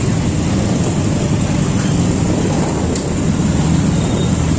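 Several motor scooters' engines running together in a slow-moving pack of riders. The sound is a loud, steady rumble with no single event standing out.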